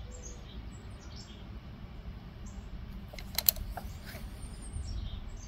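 A few sharp metallic clicks about three and a half seconds in, and one more just after, from a bit driver working the inner T10 Torx adjusting screw of a rocker arm on a Briggs & Stratton 550EX overhead-valve engine as the screw is loosened. Around them, only faint low background noise.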